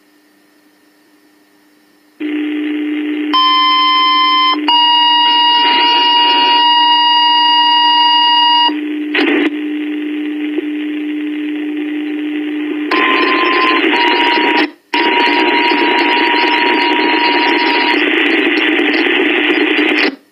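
Fire dispatch radio heard through a scanner: an open channel with a steady hum, then a two-tone page, a short tone of about a second followed straight away by a slightly lower tone held for about four seconds. Several seconds later the channel fills with loud static hiss, broken by a brief dropout.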